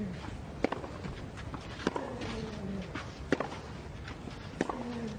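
Tennis rally: a ball struck back and forth by rackets four times, about once every second and a quarter, over steady stadium ambience, with a few faint falling tones between the shots.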